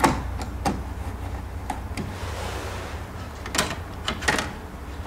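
Small, sharp clicks and scrapes of a screwdriver turning out a circuit breaker's terminal screw and the wire being worked out of the breaker, a handful of separate ticks over a steady low hum.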